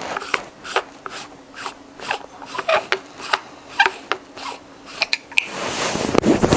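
Irregular clicks and scrapes as a PC water-cooling reservoir with a copper-plated brass top is handled and opened. About five and a half seconds in, a louder rustling rush of a small microphone, hung from a belt loop, rubbing against clothing.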